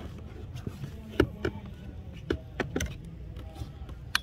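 A handful of short, sharp knocks and clicks, about six in four seconds with the loudest a little over a second in, over a steady low rumble.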